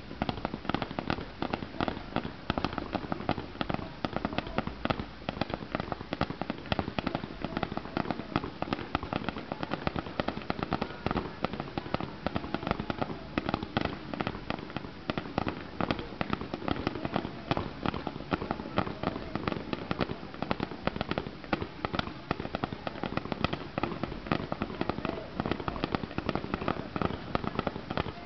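Fireworks firing in a dense, unbroken barrage of sharp pops and bangs, many a second, with no let-up.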